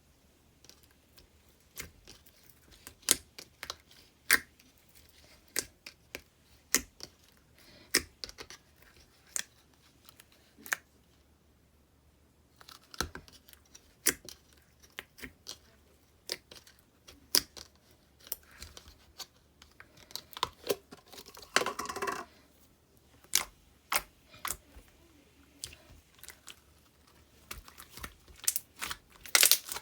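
Slime being squeezed and pressed by hand, making sharp wet clicks and pops at irregular intervals, with a denser crackling stretch a little past the middle.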